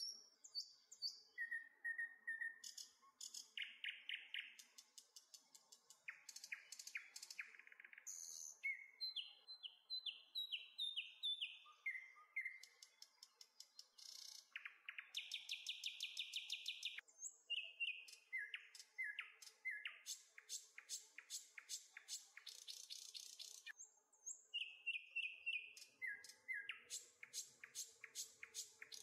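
Songbirds singing a string of varied phrases one after another: fast trills, runs of repeated notes and short down-slurred whistles with brief gaps between them.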